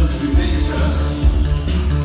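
Live synth-pop band playing, loud, with a bass line pulsing in a steady beat.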